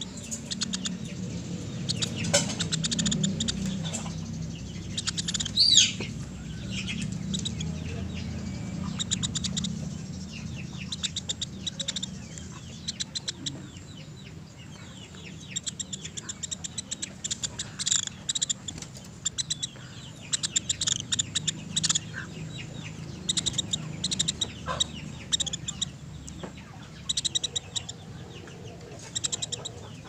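Woodpecker (pelatuk beras) calling: repeated sharp, high chips and quick rattling series of ticks, with one loud call about six seconds in.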